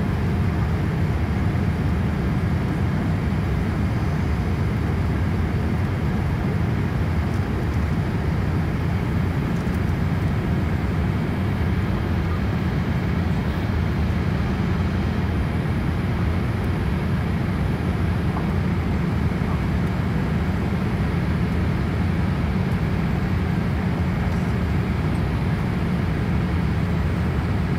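Boeing 787-8 cabin noise heard from a window seat over the wing during the climb: a steady, mostly low rumble of the engines and airflow with a fainter hiss above, unchanging throughout.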